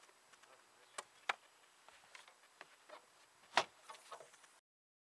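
A few sharp knocks and clicks over faint outdoor background, the loudest about three and a half seconds in; the sound then cuts off abruptly to dead silence.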